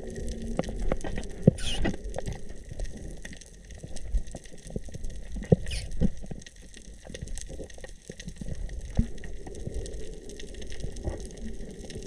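Water movement with many scattered clicks and crackles, as picked up by a camera underwater.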